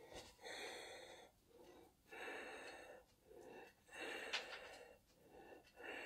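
An elderly man's audible, wheezy breathing: about five faint breaths, each under a second, taken in a pause in his talk.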